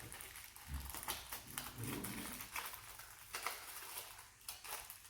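Plastic packaging and containers handled and pried open, a run of small crinkles and clicks.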